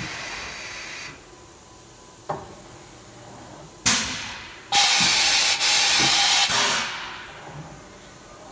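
Hardinge VMC 800II vertical machining center running a program without cutting: the spindle is nearly silent, and the sound is hiss from the machine's air system, a short hiss at first, a click, a sharp burst that fades, then a loud steady hiss of about two seconds that cuts off suddenly.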